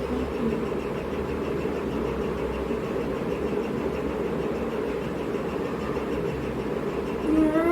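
Steady low background hum with no distinct events. Near the end a loud, long, wavering pitched call begins.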